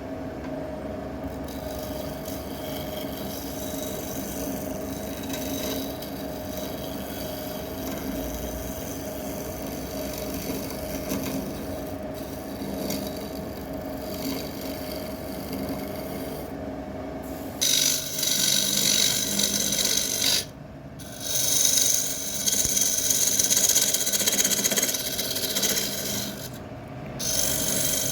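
Wood lathe running with a steady motor hum while a turning tool cuts and scrapes the spinning wood. The cutting gets much louder about two-thirds of the way through, with two brief breaks where the tool lifts off.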